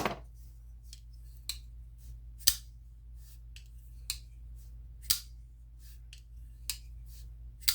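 Kizer Latt Vind Mini folding knife flipped open and closed over and over: a series of short sharp clicks as the blade snaps into lockup and drops back into the detent, the loudest about every two and a half seconds with fainter ticks between. The detent click comes from a freshly replaced detent ball and is less crisp than on a like knife.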